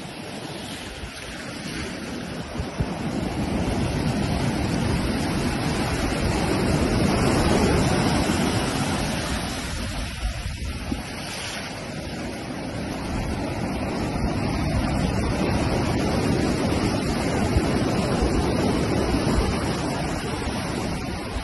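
Surf breaking and washing up a sandy beach, swelling and easing with the waves, with wind rumbling on the microphone.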